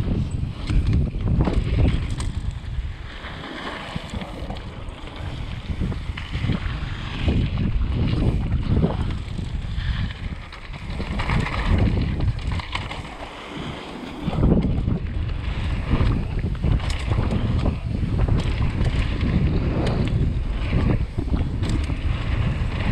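Wind rushing over a GoPro's microphone and mountain-bike tyres rolling over dirt and gravel on a fast downhill run. The Canyon Torque rattles and clicks over bumps. The rush dies down briefly a little past the middle, then picks up again.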